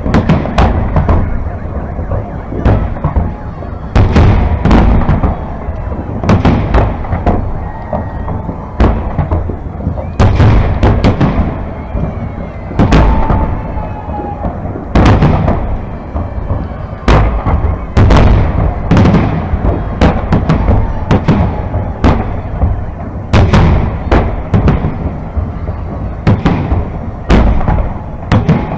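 Aerial firework shells of a large salute display bursting overhead. Loud bangs follow one another irregularly, about one or two a second, over a continuous low rumble.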